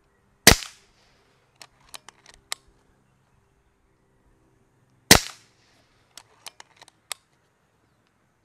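Two shots from a Kral Puncher Breaker .22 PCP bullpup air rifle, about four and a half seconds apart. Each shot is followed about a second later by a quick run of four or five sharp clicks as the action is worked for the next pellet.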